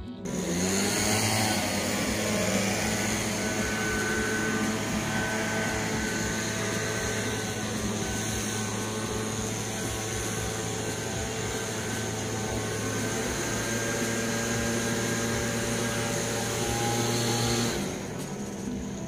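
Steady mechanical drone of a motor or engine running at a constant speed, with a low hum that does not change in pitch, cutting off near the end.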